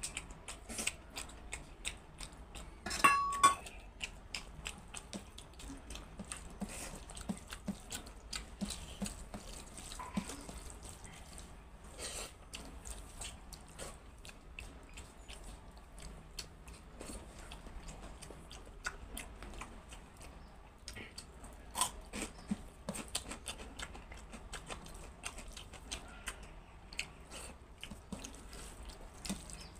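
Fingers mixing and squeezing cooked rice with dal on a steel plate: a run of small wet, sticky squelches and clicks. About three seconds in, a loud clink with a brief ringing tone.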